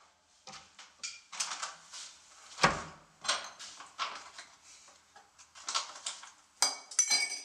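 Kitchen handling sounds at a countertop: a string of small clicks and knocks as a glass and a carton are picked up and set down. There is one solid knock about two and a half seconds in and a quick run of ringing glass clinks near the end.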